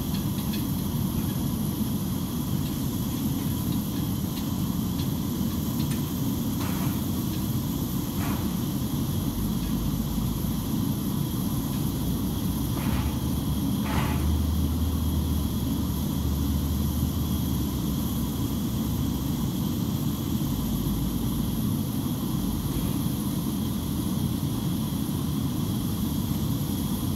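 Steady rumble and hiss of machinery around a parked airliner on an airport apron, with a few faint clicks and a low hum that swells for a few seconds past the middle.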